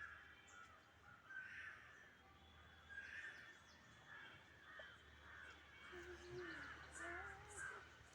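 Faint harsh, caw-like bird calls, repeated about half a dozen times and coming closer together near the end, with faint high chirps.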